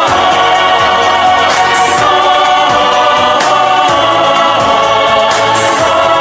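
Music: singing with long, wavering held notes over a drum beat and backing instruments.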